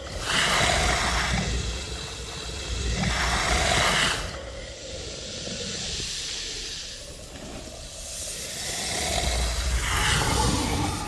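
Film sound effect of the basilisk, a giant serpent: loud breathy hisses over a low rumble. Two strong hisses come about three seconds apart near the start, and another swells up near the end.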